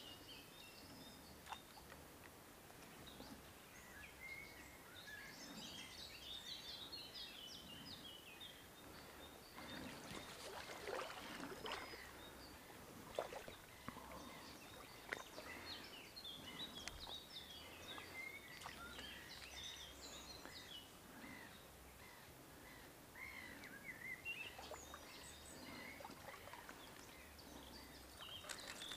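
Faint birds chirping and singing, with a few soft clicks and rustles of handling now and then.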